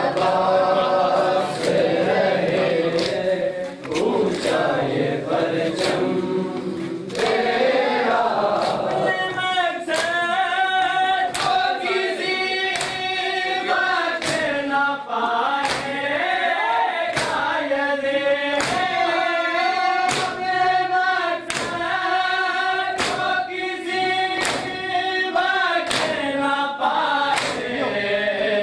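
Mourners chanting a nauha together, with the steady rhythm of open-hand slaps on bare chests (matam) keeping time, the strikes under a second apart.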